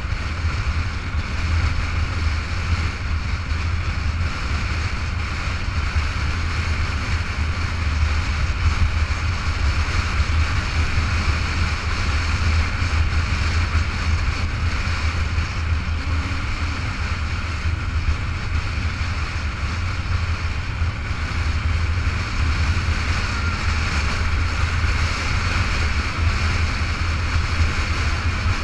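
Motorcycle cruising at a steady speed: an even, low engine drone under a constant rush of wind on the microphone.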